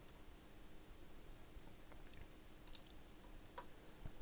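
Near silence with a few faint computer mouse clicks in the second half.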